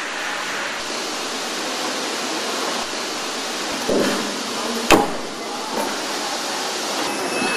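Steady hiss of car assembly-hall ambience, with a soft knock about four seconds in and a single sharp click about a second later.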